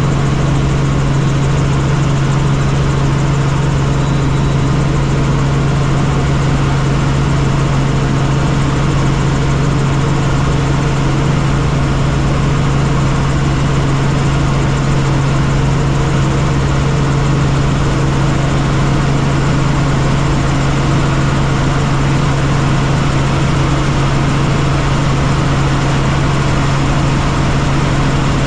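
Helicopter running, a steady drone of rotor and engine: one strong low hum over an even rumble, unchanging throughout.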